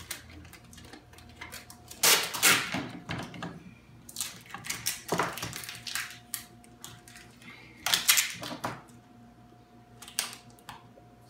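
Clear packing tape being pulled off its roll in several loud rasping rips a couple of seconds apart, as it is stretched over glued edge banding to hold it down. The loudest pulls come about two seconds in and again about eight seconds in.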